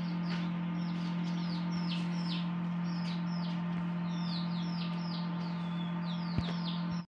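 Young chicks peeping continuously, many short high falling chirps a second, over a steady low electrical hum.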